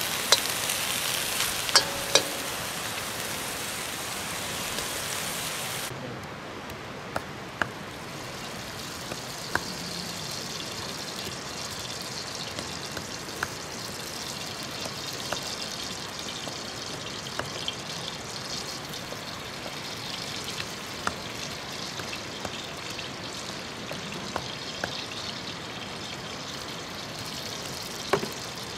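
Leafy greens sizzling in a hot iron wok, with a steel ladle clinking and scraping a few times in the first seconds. About six seconds in, the sound drops suddenly to a quieter steady hiss with scattered small sharp clicks.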